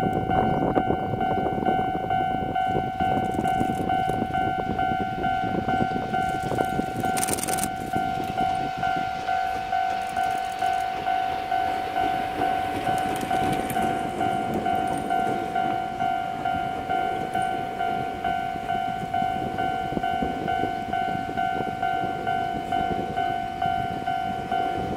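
An electric locomotive hauling a multi-car electric train set rolls past, its wheel and rail rumble loudest early and fading as the last cars go by. Over it a level-crossing warning bell rings steadily in an even, quick rhythm and keeps ringing after the train has passed.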